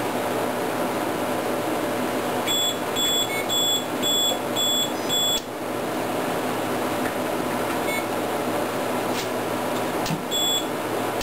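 APC uninterruptible power supply beeping its alarm while it runs on battery through unstable mains power: a quick run of about six short high beeps a few seconds in, and one more near the end. Steady fan noise underneath, with a couple of sharp clicks near the end.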